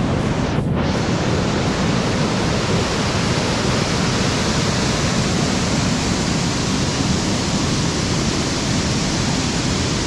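Waterfall and stream rapids rushing steadily, a loud, even wash of water.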